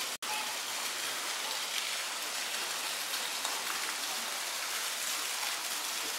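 Steady hiss of rain falling on wet concrete, with a brief dropout just after the start.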